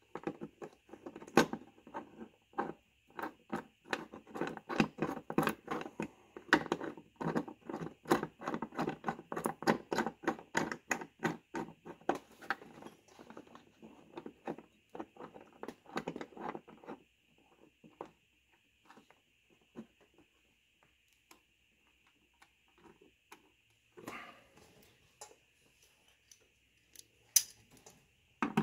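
Rapid, irregular light clicks and taps of hand-fitting a new door striker bolt and its gasket into the door pillar of a 1990–1997 Lincoln Town Car. The clicks thin out after about seventeen seconds, with a short scraping rustle near the end.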